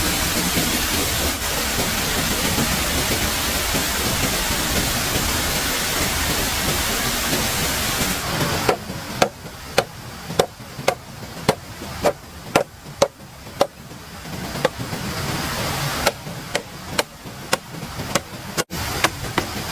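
Steady rushing noise, then a long run of sharp blows from a hand tool striking, about two a second, with a short break partway through.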